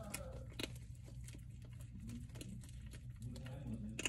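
Prairie dog gnawing a treat held in its paws: scattered sharp crunching clicks over a low steady hum.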